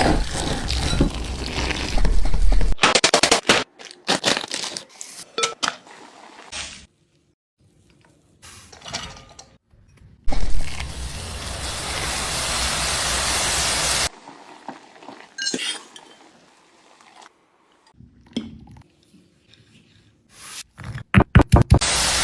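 Kitchen cooking sounds in short cut-together snippets: dishes and utensils clinking, knocking and scraping, broken by stretches of steady hiss. The longest hiss comes about ten seconds in and lasts some four seconds.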